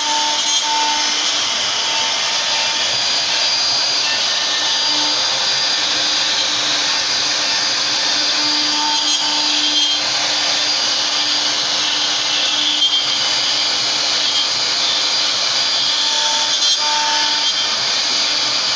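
CNC router running steadily, its spindle giving a constant whine over a loud, even hiss of machine noise.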